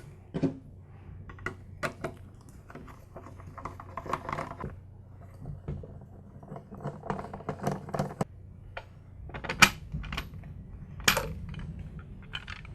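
Irregular small clicks, taps and rattles of a tool and screws as the belt cover is taken off a Porter Cable 352VS belt sander, with two sharper clicks near the end.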